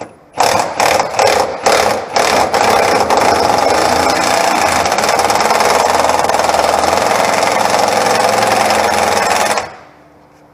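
Milwaukee impact wrench hammering on a bolt: a few short trigger bursts, then one long continuous run of about seven seconds that stops suddenly near the end, working loose a bolt that is stuck fast.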